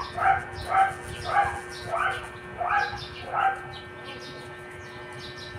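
A dog barking over and over, about two barks a second, stopping about three and a half seconds in.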